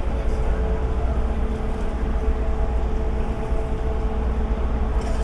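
A ship's engine running, a steady low rumble with a constant hum that does not change.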